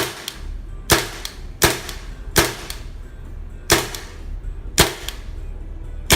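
Tippmann M4 airsoft blowback rifle firing single shots on semi-auto, about seven sharp cracks at an uneven pace, each with the clack of the blowback bolt.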